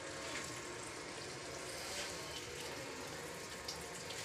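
Steady, even rushing background noise with a few faint ticks.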